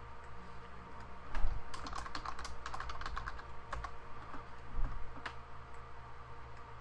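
Typing on a computer keyboard: a quick run of keystrokes starting about a second and a half in, then a few scattered clicks before it goes still, over a faint steady hum.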